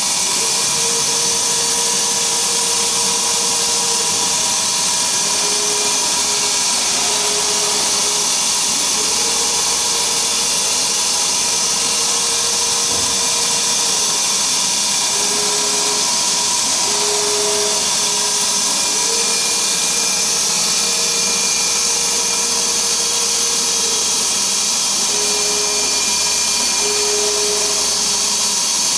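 Dongshin Drill Master 2007 machine running: a steady high hiss with a motor hum that drops in and out every few seconds.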